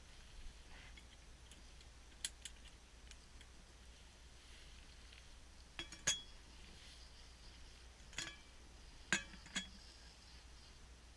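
Sharp metal clinks of a camping cook pot and its lid being handled. There are a couple about two seconds in, a cluster around six seconds, and more near eight and nine to ten seconds.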